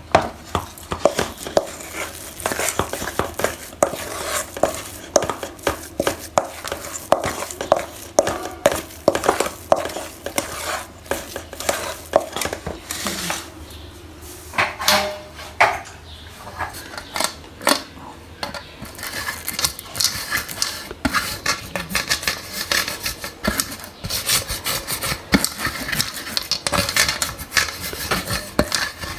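A kitchen utensil clinking and scraping against cookware in quick, repeated strokes, as in stirring or mixing. The strokes grow denser and brighter about two-thirds of the way through.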